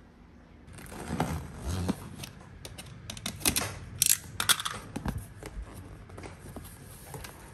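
A taped delivery box being opened by hand: tape pulled away and the box and its flaps handled, in a series of sharp tearing and rustling sounds starting about a second in.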